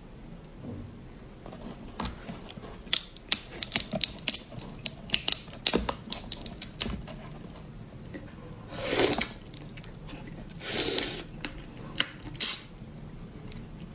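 Raw marinated crab being handled and eaten: a rapid, uneven run of sharp clicks of crab shell and utensils against a dish, then three longer noisy bursts.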